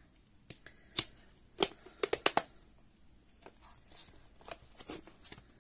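Light plastic clicks and knocks as a Crayola air dry clay tub and its lid are handled and put away, with a quick run of four snaps about two seconds in.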